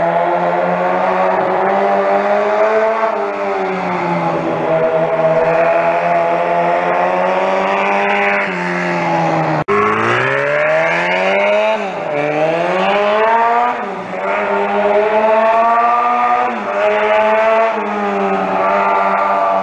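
Minibike engine running hard as the bike circles, its pitch rising and falling with the throttle. It breaks off for an instant near the middle, then revs up from low and rises and dips several times.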